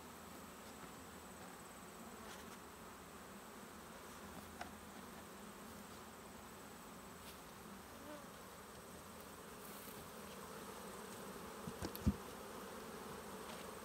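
A steady hum of many honeybees flying around the hive boxes, with a couple of short knocks near the end.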